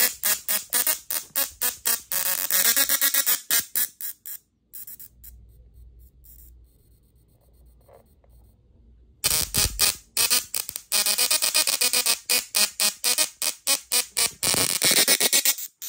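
Small musical Tesla coil's spark discharge buzzing out a tune in quick rhythmic notes. It stops about four seconds in and starts playing again about nine seconds in.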